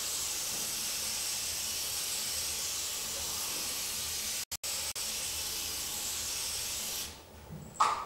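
Television static from an untuned CRT TV: a steady hiss of white noise that drops out for an instant a couple of times about four and a half seconds in and stops about seven seconds in.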